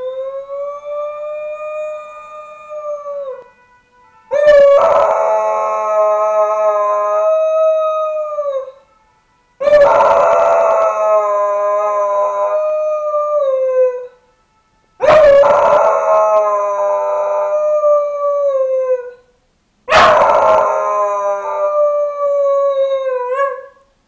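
Dog howling in a run of five long howls of several seconds each, with short breaks between them. The first rises in pitch; the later ones start abruptly and sag slightly at the end. The howling is set off by a fire engine siren.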